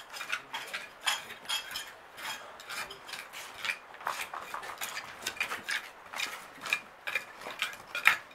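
Hand trowels and a metal scoop scraping and scooping loose, gritty soil in quick, irregular strokes, with sharp clicks of metal against stones.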